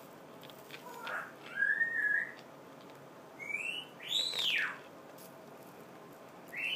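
Three whistled notes that slide in pitch. The first rises and falls about one and a half seconds in, the second is a short rise about three and a half seconds in, and the third arches up and then falls steeply just after four seconds.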